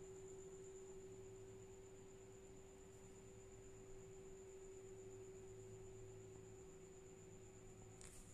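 Near silence with a faint steady low hum and a thin high-pitched tone above it, and a brief handling bump near the end.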